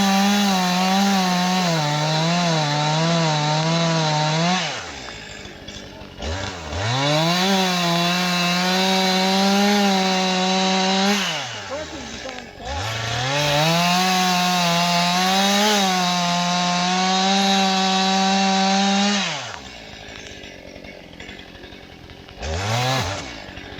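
Gas chainsaw run at full throttle in three long bursts, cutting wood, its pitch wavering under the load of the cut and dropping back toward idle between bursts. A short blip of the throttle comes near the end.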